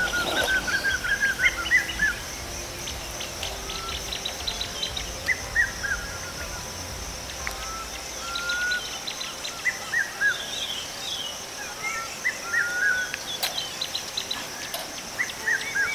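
Outdoor ambience of several birds chirping and calling in short rising and falling notes over a steady high-pitched drone. A low rumble underneath stops about halfway through.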